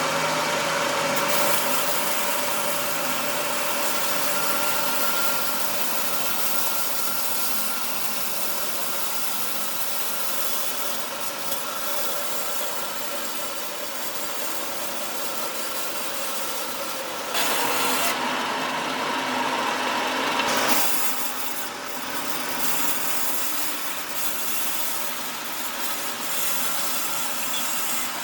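A restored wood-sawing machine running and sawing through wood, with a steady motor and blade noise. For about three seconds a little past halfway the cutting gets louder and brighter.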